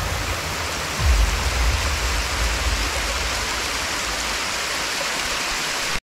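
Steady rushing hiss of water falling at a small waterfall, with a brief low thump about a second in.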